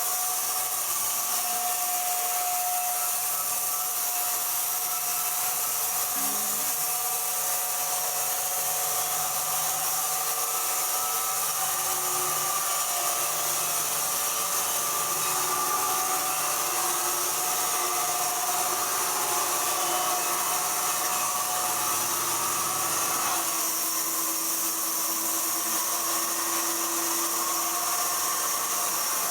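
Sawmill machinery running, such as a circular saw: a steady, even hiss with faint whining tones that drift up and down in pitch.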